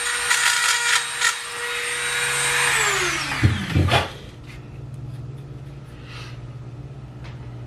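Corded Dremel rotary tool grinding on the back of a bleached goat skull, sanding off leftover yellow grease staining: a steady high whine with rough grinding noise. About three seconds in it is switched off, and the whine falls in pitch as it spins down. A low steady hum carries on underneath.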